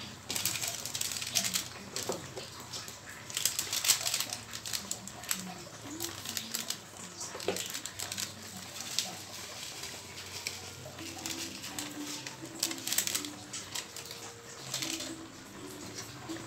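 Pork steak with potatoes and onions simmering in soy-sauce gravy in a wok, crackling and popping in irregular bursts.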